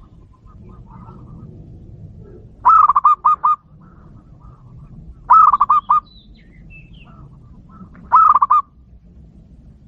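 Zebra dove (perkutut) cooing: three short phrases of quick, clipped coos, each about half a second to a second long and roughly two and a half seconds apart. Faint chirps of other birds come in between.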